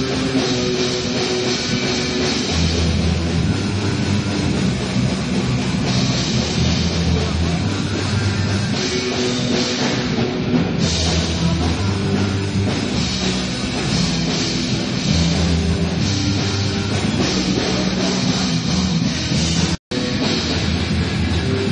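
Rock band playing, with guitar and drum kit. The sound cuts out for an instant near the end.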